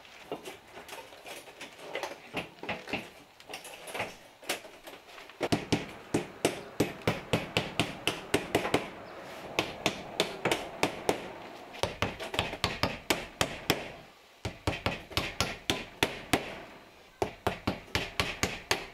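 Hammer driving nails by hand through 3/8-inch high rib metal lath into wood framing: a few scattered taps at first, then quick runs of strikes, about three a second, with a short pause about two-thirds of the way through.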